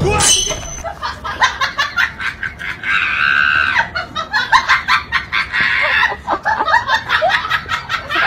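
High-pitched vocal calls in quick, irregular bursts, with one longer held squeal about three seconds in.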